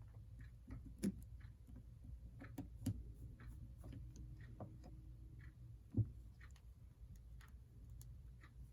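Faint, irregular clicks and light taps of small parts being handled and fitted on a model locomotive, with a few sharper knocks about one, three and six seconds in.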